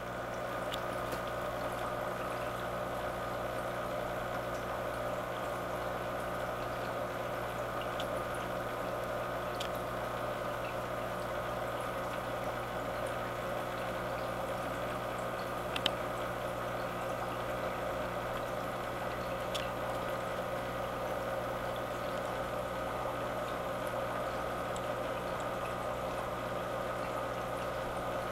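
Saltwater aquarium pump and water circulation running: a steady hum under an even wash of moving water. A faint click comes about sixteen seconds in.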